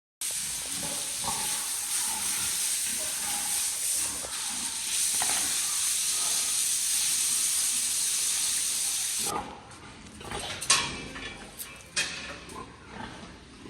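Pigs grunting and squealing over a loud, steady hiss that cuts off suddenly about nine seconds in. Scattered knocks and clatters follow.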